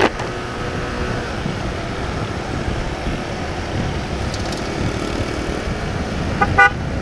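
Honda CB150R StreetFire motorcycle's single-cylinder engine running at low speed amid steady road traffic. Near the end comes a short burst of rapid high beeps.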